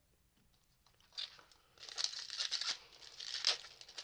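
Foil Pokémon booster pack wrapper being torn open and crinkled, with many small crackles, starting about a second in after a near-silent pause.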